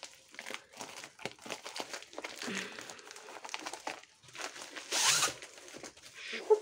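Plastic bubble mailer crinkling and rustling as it is torn open at one end and handled, with many small crackles and a louder burst of crinkling about five seconds in as the paper-wrapped canvas roll is slid out.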